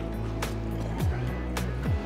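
Background music with a steady beat, held low notes and a falling bass slide that comes back a few times.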